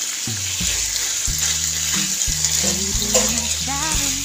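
Minced pork and bamboo shoots sizzling in a frying pan while a spatula stirs them, over background music.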